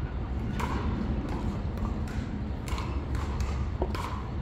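Pickleball paddles hitting a plastic ball: a handful of sharp pops spaced about a second apart, over a steady low outdoor rumble.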